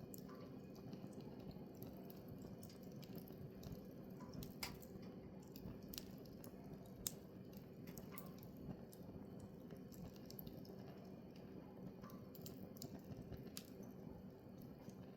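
Firewood burning in a campfire: a faint steady low rush with scattered sharp crackles and pops, the loudest pop about seven seconds in.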